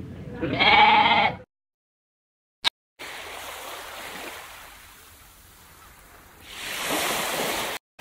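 A goat bleats once, a loud call just under a second long. After a short silence and a single click, surf washes on a sandy beach, swelling louder near the end before cutting off.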